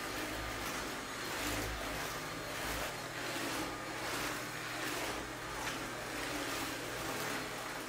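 Cordless stick vacuum running on a hard floor, a whooshing noise that swells and fades about twice a second as the cleaner head is pushed back and forth.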